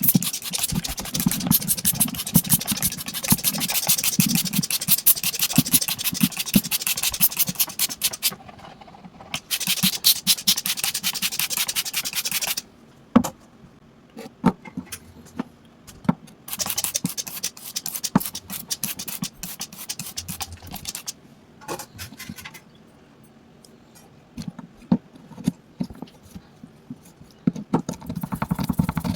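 Rapid scrubbing or scraping strokes on a hard object being cleaned, in three long spells, with scattered clicks and taps in the pauses between them.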